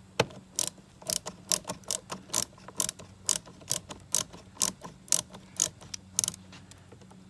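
A hand driver clicking steadily as small screws are driven into the power-mirror assembly: a regular run of sharp clicks, about two a second, that stops near the end.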